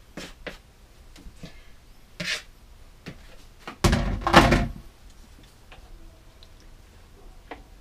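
A few clicks and scrapes of a utensil against a plastic bowl as macaroni is scraped into a skillet, then a short knock. About four seconds in, a loud clattering thunk as the plastic bowl is put into the kitchen sink, followed by faint ticks.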